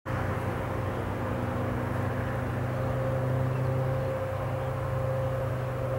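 Airbus A320 jet engines on final approach, a steady drone with a steady low hum and a higher steady tone running through it.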